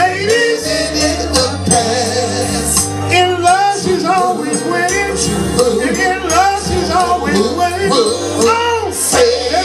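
Male vocal group singing live over a backing band, with a steady bass line and bright percussion.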